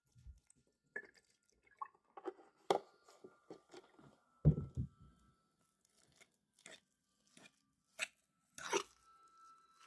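Hand potato masher working boiled potatoes with a little milk: irregular wet squishing, with sharp knocks of the masher against the pot and one heavier dull thump about halfway through.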